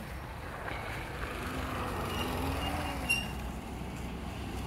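A motor vehicle running on the road: a steady low rumble with a faint engine note that rises and falls slowly through the middle. A short click about three seconds in.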